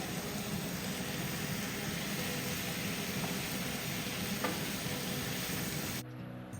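Chicken frying in hot oil in a pan, a steady sizzle that cuts off suddenly about six seconds in.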